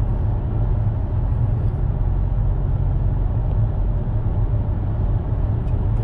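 Dodge Challenger ScatPack Widebody's 6.4-litre V8 and tyre noise heard from inside the cabin while cruising: a steady low rumble with no revving.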